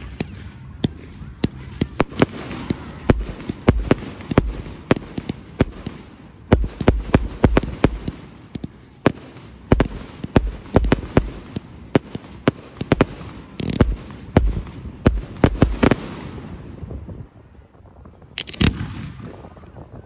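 Aerial fireworks display: a rapid string of sharp bangs from bursting shells, dozens of reports in quick succession. The bangs ease off about sixteen seconds in, then a couple more loud ones come near the end.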